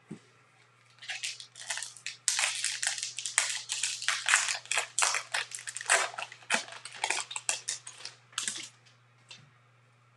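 Wrapper of a Bowman baseball card pack being torn open and crinkled by hand: a dense run of crackling starts about a second in and dies away near the end.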